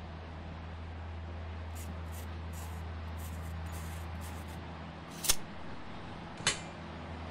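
Pencil lightly scratching marks on a board in short strokes, then two sharp knocks a little over a second apart as the tape measure and metal square are handled on the board, the first the louder, over a steady low hum.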